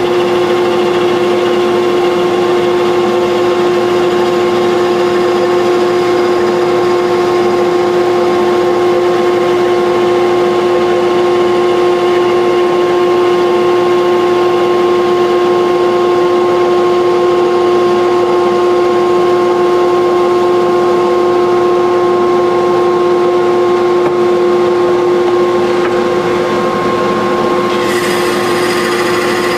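Wood lathe running with a steady motor whine while a hand-held turning tool cuts a spinning wooden handle blank. The cutting noise turns brighter about two seconds before the end.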